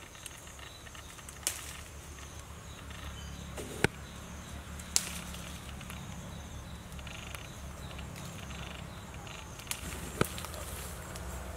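Leaves and stems being picked by hand: rustling, with a few sharp snaps, over a low steady outdoor rumble.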